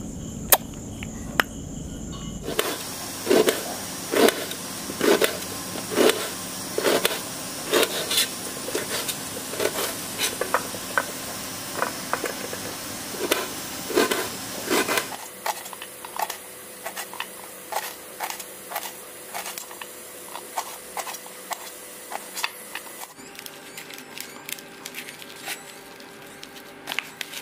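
A knife chopping onions on a cutting board, a sharp knock about once a second. In the second half come quieter, scattered ticks, and near the end the soft sounds of hands mashing boiled potato in a steel bowl.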